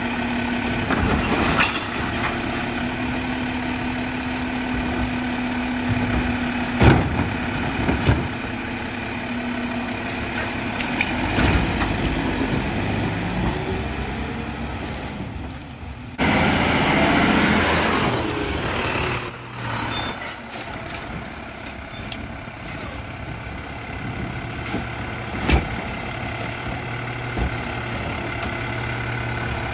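Mack LEU garbage truck with a Labrie Helping Hand automated arm at work: the engine and hydraulics hum steadily while the arm dumps a cart, with a couple of sharp knocks. About halfway through there is a loud hiss of air brakes and some high squeaks as the truck moves up, then the engine idles as the arm reaches for the next cart.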